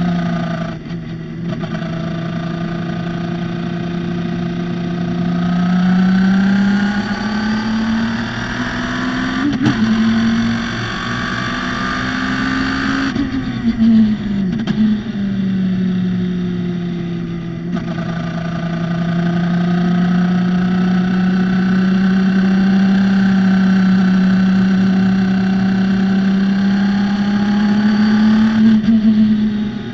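Radical SR3's motorcycle-derived four-cylinder engine running hard on track. The engine note climbs under acceleration, drops sharply about halfway through, then holds high and steady for a long stretch. Short breaks in the sound mark gear changes or lifts off the throttle.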